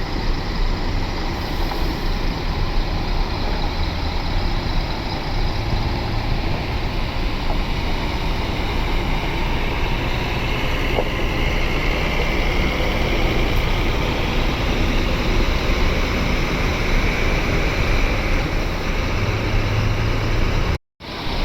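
Intercity bus's diesel engine pulling away, with steady traffic noise around it and a faint rising pitch through the middle as it picks up speed. The sound cuts out for a moment near the end.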